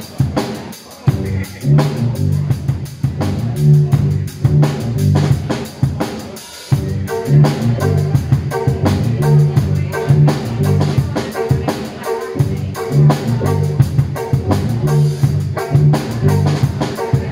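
Live drum kit and amplified violin playing together: steady drum hits over a repeating low melodic line. The music drops out briefly about six and a half seconds in, then comes back.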